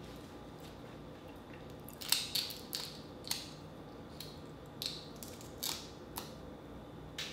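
Cooked Dungeness crab shell being cracked and snapped apart by hand. It comes as a run of short, sharp cracks that start about two seconds in and keep coming irregularly.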